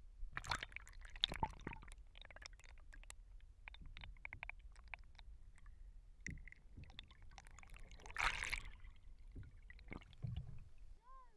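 Water sloshing and gurgling around an action camera as it dips in and out of the surface beside a kayak hull, with scattered knocks and clicks and a louder splash about eight seconds in.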